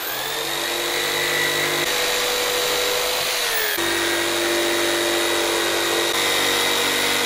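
Electric jigsaw cutting through a board: the motor whines up to speed and runs steadily, with a brief dip in pitch a little past halfway.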